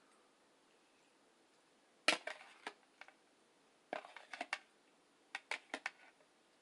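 A serving utensil clinking and scraping against dishes as food is dished into a bowl: a sharp clatter about two seconds in, then short groups of clicks.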